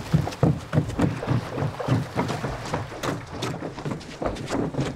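Footsteps on the boards of a wooden jetty: quick, uneven hollow thuds, several a second.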